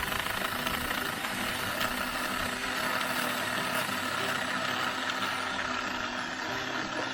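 Cordless 8-inch mini chainsaw running steadily, its chain cutting through a bark-covered log.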